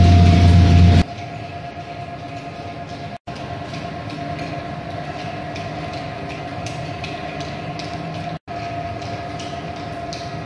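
Chain conveyors and drive units of a Poma gondola's cabin-garage rail system running: a steady mechanical hum with a constant whine and light, rapid clicking from the chain links. A louder low hum stops abruptly about a second in, and the sound cuts out briefly twice.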